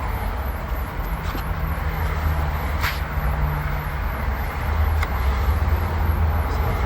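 Steady low rumble under a hiss of background noise, with a few light clicks.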